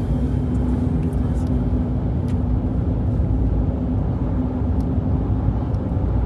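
A car driving: steady low rumble of engine and road noise with an even hum throughout.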